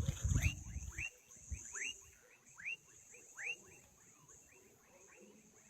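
A frog calling: short chirps that sweep quickly upward, repeated irregularly about once every half second to a second, fainter in the second half. A low rumble in the first second and a steady high-pitched whine run underneath.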